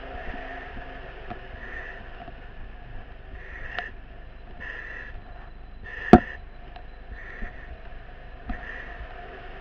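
A firefighter breathing hard in short, regular breaths, about one every second and a half, over a steady engine hum, with one sharp knock about six seconds in.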